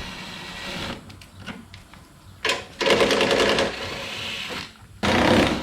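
Cordless power tool running in several short bursts, spinning out small fasteners.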